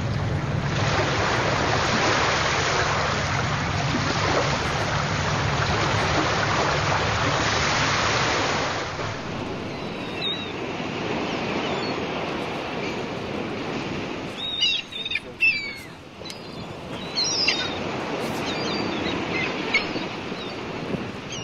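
Wind and lapping water on the lake, with a steady low hum for the first half that then drops away; a little past the middle come several short, high chirping calls.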